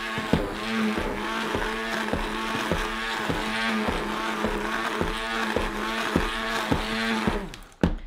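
Stick blender running in thick hot-process soap batter, its motor humming steadily with regular knocks two or three times a second as it churns. The blending makes the cooking batter bubble up and turn to soap quicker. The motor cuts off near the end.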